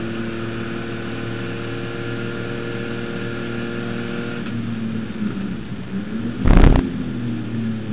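HQ Holden race car's straight-six engine running at steady high revs, heard from inside the cabin, easing off about halfway through. A loud thump about two-thirds of the way in.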